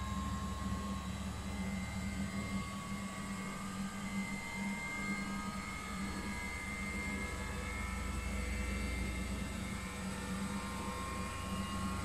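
Older Miele front-loading washing machine running mid-cycle: a steady motor hum with a low rumble and a faint whine that drifts slightly in pitch.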